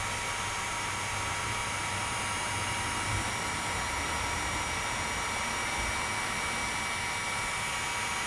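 Electric heat gun running steadily, its fan blowing a continuous rush of hot air with a faint steady whine, shrinking heat-shrink tubing over a soldered wire splice.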